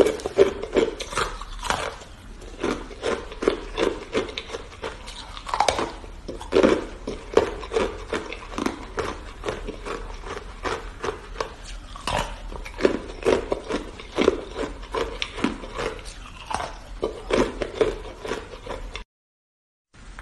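Hard ice being bitten and chewed right up close to the microphones: a continuous run of sharp crunches and cracks, several a second, cut off for about a second near the end.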